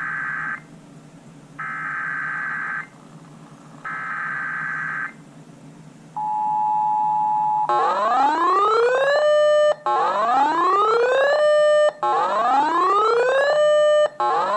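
Three EAS SAME header data bursts, each a harsh digital warble about a second long, then a steady two-tone EAS attention signal about six seconds in. After a second and a half it gives way to a loud repeating rising whoop like a siren, about one whoop every two seconds.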